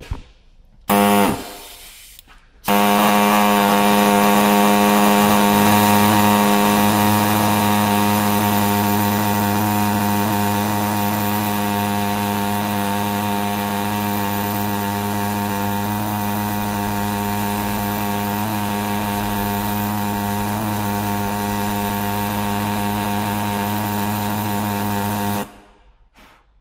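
Air hacksaw cutting sideways into a corroded, seized steel ABS reluctor ring on a BMW 3 Series rear driveshaft. A short burst about a second in, then the saw runs steadily at one pitch for over twenty seconds and stops suddenly near the end.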